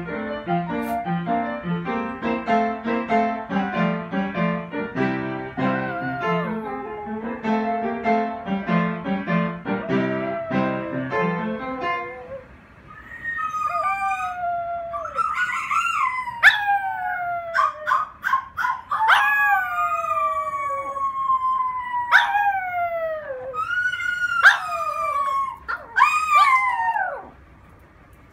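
Piano music plays for about the first twelve seconds; then a small dog howls again and again, each howl a long falling cry, with short yips between them.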